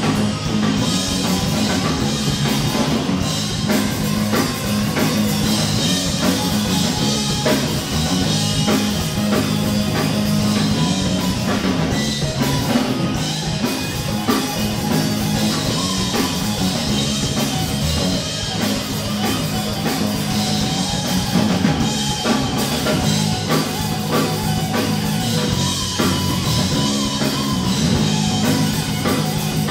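Live punk rock band playing: electric guitars and a drum kit, loud and steady.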